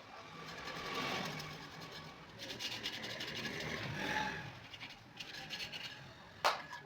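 Repeated scraping and rubbing strokes on ceiling fan parts during cleaning, rising and falling in loudness, with one sharp click near the end.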